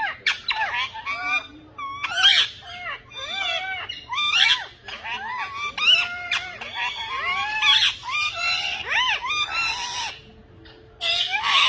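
Several parrots squawking and calling over one another, a dense run of short rising and falling calls, with a brief lull near the end.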